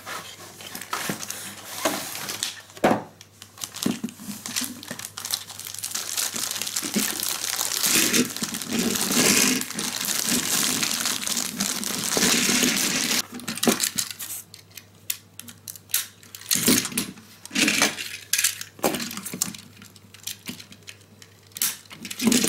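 Toy packaging being handled: a plastic tray and wrapping crinkle and rustle for several seconds. Then the plastic Plarail shinkansen cars give a run of separate clicks and knocks as they are set down on the table and coupled together.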